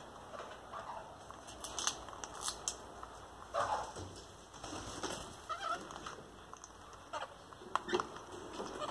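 A Derbyan parakeet cracking and nibbling a nut with its beak: scattered sharp cracks and clicks of shell, with a few short chirps in between.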